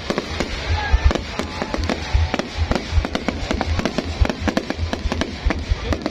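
Fireworks going off in a dense, continuous barrage of sharp bangs and crackles over deep booms.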